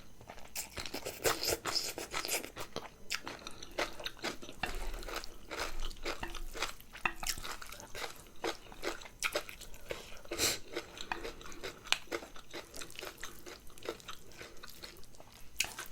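Close-miked eating: irregular crisp crunching and chewing, mouthful after mouthful, while eating a bowl of spicy tossed noodles.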